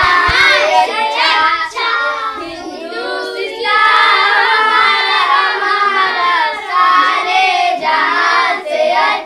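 A group of boys singing a song together without accompaniment, in loud unison voices that stop just before the end.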